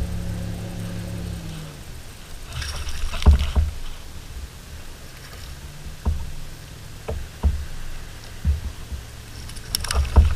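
Background music fades out over the first two seconds. Then sea water slaps and sloshes against a kayak hull, with irregular low knocks and a splash about three seconds in and another near the end.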